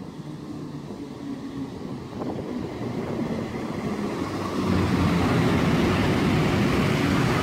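PKP Intercity EP09 electric locomotive hauling a passenger train into the station. Its wheel and running noise grows louder as the locomotive draws level, with a clear jump about two-thirds of the way through, over a steady low hum.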